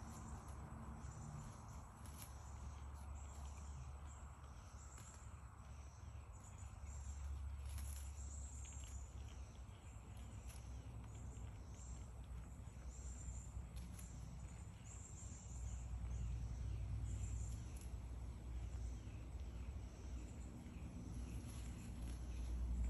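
A chorus of insects chirping, many short high chirps repeating over a steady high trill, with a low rumble underneath that swells a few times.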